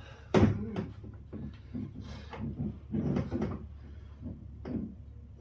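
Knocks and clatter of Yakgear kayak stabilizer parts being handled and fitted together, with a loud knock about half a second in and several smaller knocks after.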